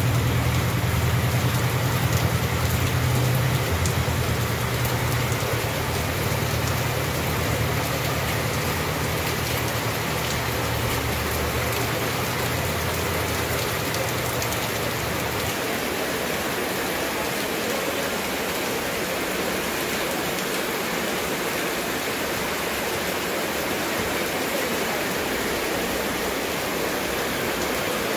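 Heavy rain coming down while storm runoff gushes across the street and pours into a metal drain grate. A low rumble underneath stops about halfway through.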